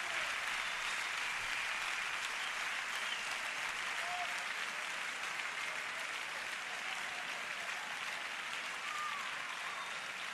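Concert audience applauding and cheering, with a few brief calls rising above the clapping. The applause slowly fades.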